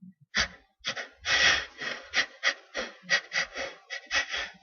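A man's quick, short gasping breaths, about a dozen in a row at roughly three a second: the catching-breath build-up between two sneezes.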